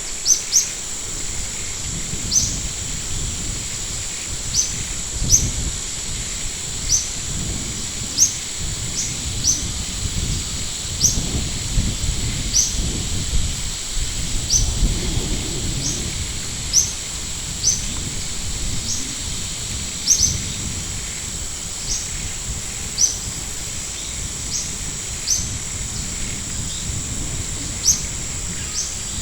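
A bird's short high chirps, each dropping slightly in pitch, repeated irregularly every second or two over a steady high whine and a low rumble.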